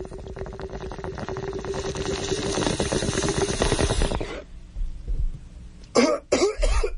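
Bong hit sound effect: water bubbling through a bong as smoke is drawn for about four seconds, then a burst of coughing near the end.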